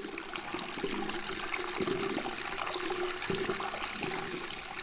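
Water rushing and splashing: a steady hiss of moving water with many small splashes and drips.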